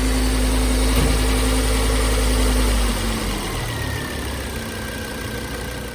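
A car engine running at idle, with a steady low rumble; about three seconds in the sound changes and gets somewhat quieter.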